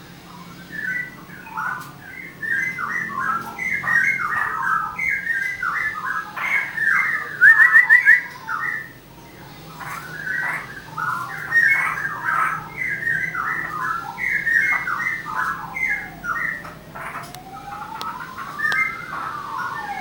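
Caged songbirds singing a continuous run of short chirping phrases, with a loud burst of quick rising notes about a third of the way in. Near the end a long whistle glides slowly down and then back up.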